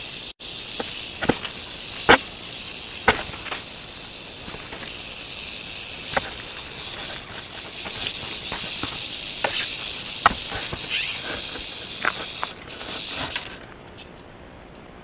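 A bobcat and a snake scuffling in dry leaf litter: sharp clicks and rustles with several loud snaps, over a steady high-pitched buzz that stops about a second and a half before the end.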